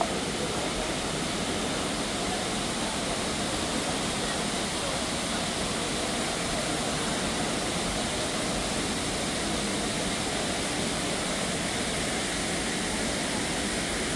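Steady rush of water falling into a pond from an indoor garden water feature.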